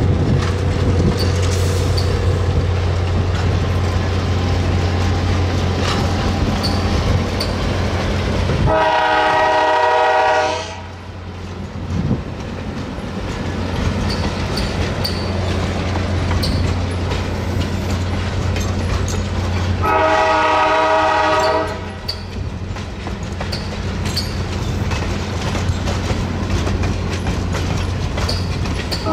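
Passenger train running past with a steady low drone and wheels clicking over the rails, sounding its multi-note horn in two blasts of about two seconds each, roughly nine and twenty seconds in.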